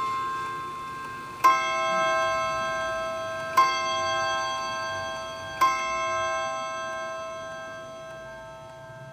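Hermle chiming wall clock's hammers striking its gong rods three times on the same note, about two seconds apart, counting the hour after the chime. Each strike rings out and fades slowly.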